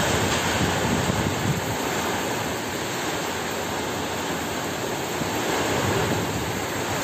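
Heavy rain pouring steadily in a windstorm, with gusts buffeting the microphone.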